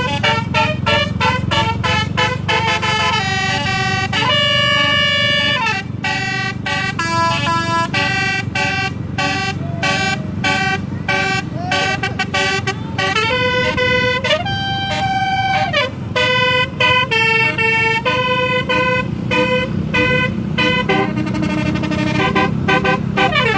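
Bus telolet 'basuri' musical horn playing a quick melody of short tooting notes, several of them sliding up or down in pitch, over a steady low rumble of engines.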